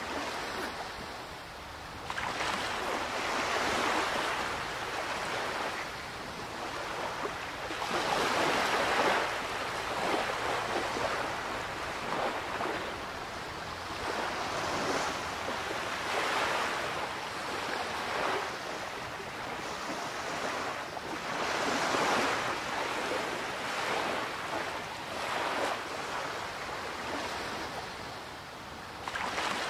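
Water splashing and rushing around a rowed whaleboat, swelling about every two seconds in time with the oar strokes, with some wind on the microphone.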